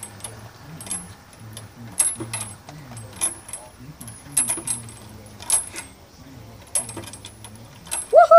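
Swing-set chains clinking and clanking sharply, about once a second, as the playset is climbed on and moved. Near the end come two brief high squeals that rise and fall in pitch, the loudest sound here.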